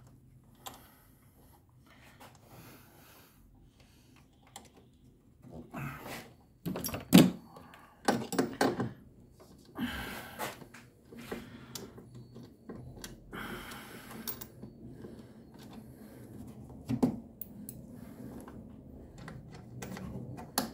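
Metal hand tools clinking and knocking as a tube box spanner and socket are fitted onto and turned on a bolt under a car bonnet: scattered sharp clicks, a few louder knocks around seven and ten seconds in, and a brief scrape about thirteen seconds in.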